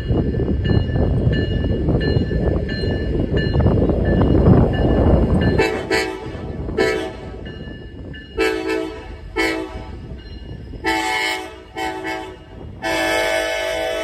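Diesel locomotive horn sounded in a series of about six short blasts, then a long held blast near the end, over a railroad crossing bell ringing at the active crossing. For the first five or six seconds a heavy low rumble is the loudest sound.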